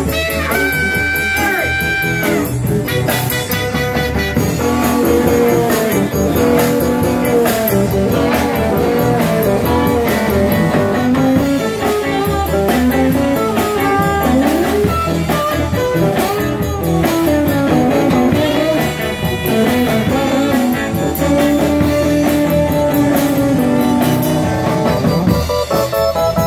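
Live band playing an upbeat rock-and-roll number. An electric guitar takes a solo full of bent and sliding notes over drums and bass, after the horns hold a note at the start.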